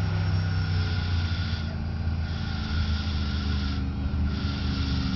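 Pickup truck's engine running under load as the truck churns through a deep mud bog pit, a steady low drone.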